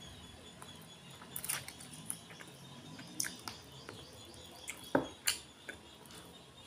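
Close-miked eating sounds from chicken eaten by hand: soft wet mouth clicks and smacks while chewing, with scattered short clicks, the loudest two about five seconds in.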